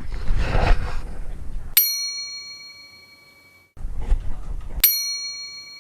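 A bright bell ding struck twice, about three seconds apart, each ringing out and fading over a second or so with dead silence behind it. Before the first ding there is a second or two of rough background noise.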